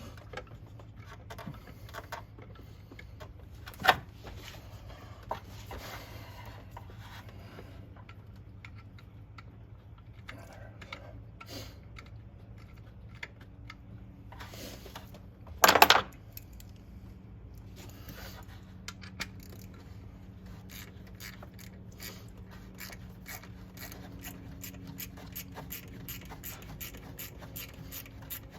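Metal parts and hand tools scraping and clinking while an alternator is worked loose in a car's engine bay, with a sharp knock about 4 seconds in and a louder, half-second metallic clatter around the middle. A run of quick clicks follows near the end, over a steady low hum.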